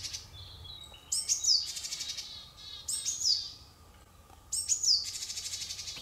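Japanese tits giving their combined call, a high 'pi-tsupi' alert note sweeping down followed by a fast buzzy 'jijiji' recruitment series, three times. The pair, always in that order, is read as 'be on alert and gather together', here with what looks like a shrike nearby.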